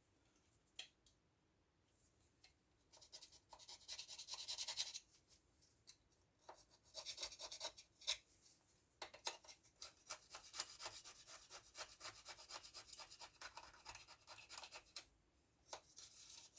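Faint scraping of crusted paint off a Stihl MS170 chainsaw bar by hand, in quick rubbing strokes that come in bouts, densest through the second half.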